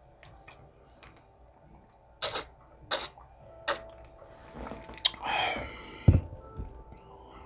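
Close-miked gulps of iced tea from a glass with ice: three swallow clicks about two-thirds of a second apart, then a short falling vocal exhale and a low thud as the glass is set down.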